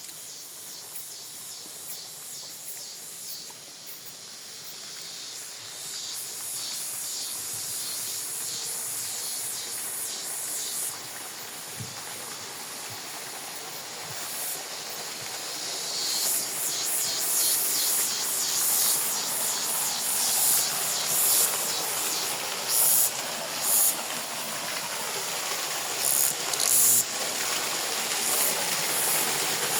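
Outdoor nature ambience: a steady rushing hiss that grows louder, with repeated high-pitched bursts in its second half.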